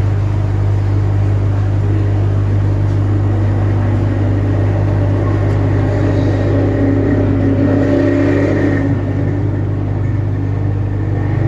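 Hot air rework station blowing steadily, a constant low hum with a slight swell between about six and nine seconds in, as used to reflow a memory IC onto a phone board.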